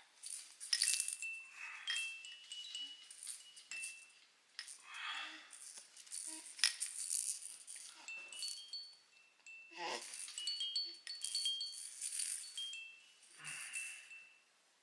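Baby rattle toy shaken in bursts several times, clicking and rattling with short, high, bell-like tinkles.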